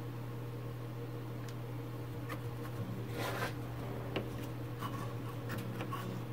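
Hands handling a cable and its plastic cable-chain fitting at a CNC router's stepper motor: scattered small clicks and a brief rustle about three seconds in, over a steady low hum.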